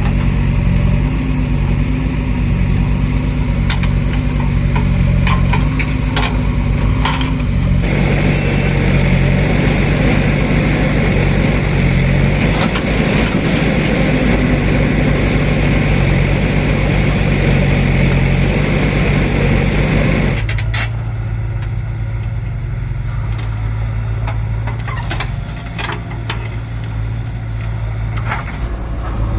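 Heavy diesel engines of construction machinery or lorries running steadily, in three segments that change abruptly about eight and twenty seconds in; the middle segment is louder with a broad hiss, and the first holds a few sharp knocks.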